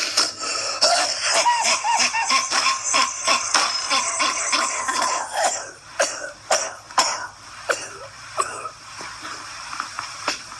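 A man in a harsh, repeated coughing fit: dense, rapid coughs for roughly the first half, thinning to scattered single coughs later on.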